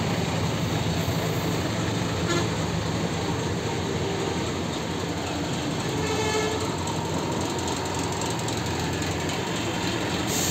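Bus engines idling in stalled traffic, a steady low rumble, with a short horn toot about six seconds in.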